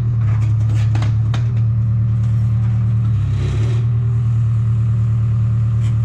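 A large engine running steadily at a low, even pitch, with several sharp knocks and clatter in the first second and a half.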